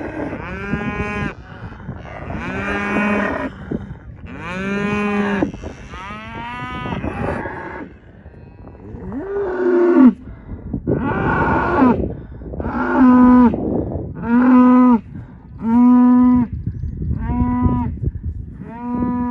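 Cattle mooing, about a dozen loud calls one after another, each lasting around a second. The calls in the second half are shorter and steadier in pitch.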